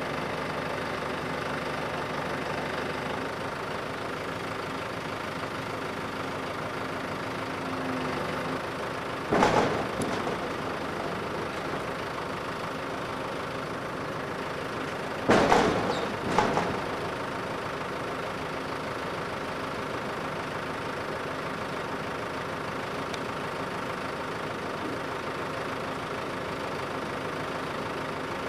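Farm tractor engine idling steadily. A sharp bang comes about nine seconds in, and a quick cluster of two or three more bangs about fifteen to sixteen seconds in.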